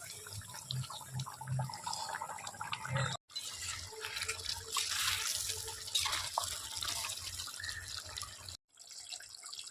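Running, splashing water like a tap, broken by two sudden brief silences.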